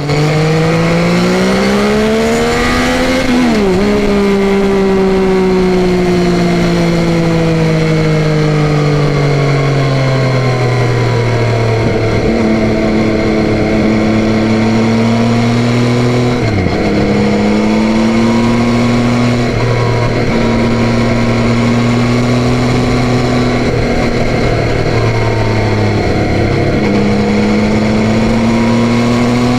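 Yamaha Tracer 9's 890 cc inline three-cylinder engine on the move: the revs climb for about three seconds and drop sharply at a gear change. The engine then eases down slowly and settles into a steady run, with brief dips at two more shifts.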